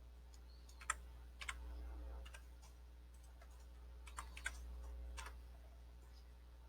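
Faint, scattered taps on a computer keyboard, a few at a time, as a price is typed in, over a low steady hum.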